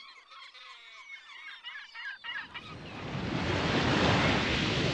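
Seabirds calling, many short chirping cries overlapping for the first two seconds or so. Then a rush of wind and water noise swells up and drowns them out, becoming the loudest sound.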